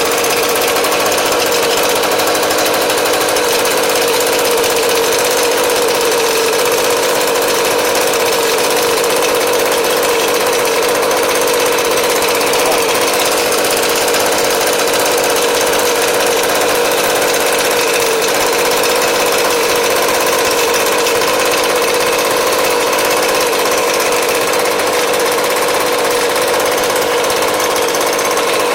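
Echo ES250 leaf blower's small two-stroke engine running at a steady, constant speed, with a steady tone from the blower and no change in throttle.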